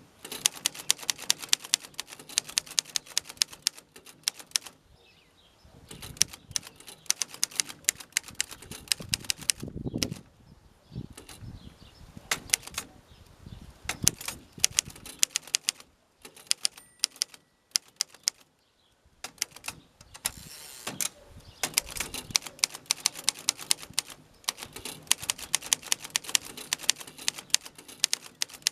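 1920 Underwood Standard Model 5 manual typewriter being typed on: fast typebar strikes in bursts of several seconds, with short pauses between them and a heavier low thud about ten seconds in.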